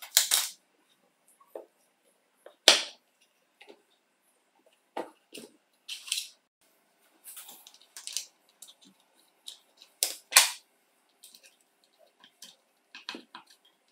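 Plastic jigsaw housing and a small DC motor being handled and fitted together on a wooden bench: scattered clicks and knocks of plastic and metal parts. The sharpest knocks come at the start, about three seconds in, and twice around ten seconds in.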